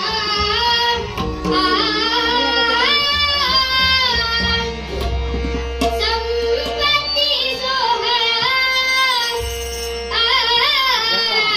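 A Vitthal abhang, a Marathi devotional song, sung in a melody that slides and bends between notes. It rides over a steady drone and tabla-like drumming.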